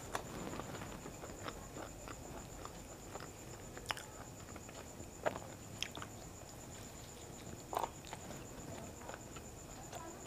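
A person eating puri and kadhi by hand: faint chewing and mouth sounds with a few scattered clicks and smacks, over a faint steady high-pitched whine.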